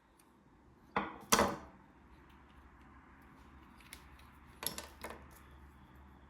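Small parts and tools being handled on a workbench: two sharp knocks about a second in, then a few lighter clicks later on, over a faint steady low hum.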